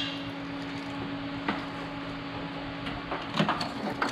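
Light clicks and knocks of a wiring harness being handled and routed around an engine, over a steady low hum in the garage.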